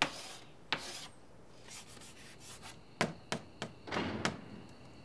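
Chalk scraping and rubbing on a chalkboard in separate strokes. There are single strokes near the start, a quick run of short strokes about three seconds in, and a longer rubbing stroke just after four seconds.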